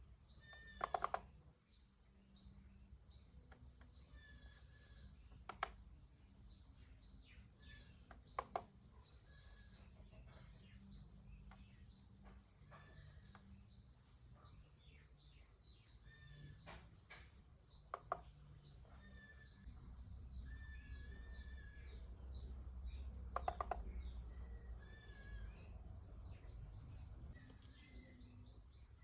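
Small birds chirping steadily, short repeated chirps with now and then a held whistled note. A few sharp clicks come in small groups, about a second in, near 9 s, near 18 s and around 23 s.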